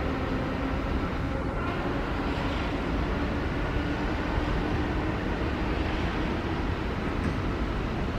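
ED4M electric multiple unit pulling away from the platform: a steady rumble of wheels on rails, with a low hum that rises slightly in pitch over the first few seconds as it gathers speed.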